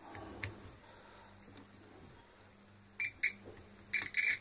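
Digital multimeter's continuity buzzer giving short, broken beeps, a pair about three seconds in and a few more near the end, as the probes touch the angle grinder's cord wires. The beeps signal continuity: the cord wire is intact.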